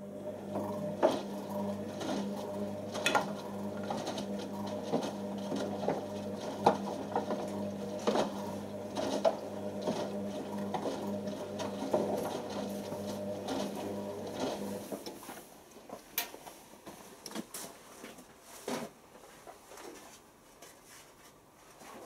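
Beko WM6103 washing machine's drum motor turning the drum in the wash, a steady hum with irregular knocks and clicks from the tumbling load. The motor stops about two-thirds of the way through, leaving scattered clicks and knocks.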